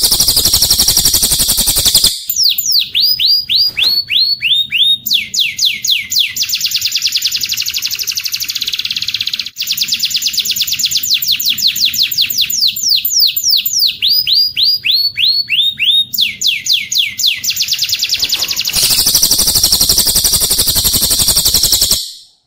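Cililin bird song joined with canary song: a dense, high canary-style trill, then a long run of rapid, repeated whistled notes, each sweeping downward, then the dense high trill again, which stops abruptly just before the end.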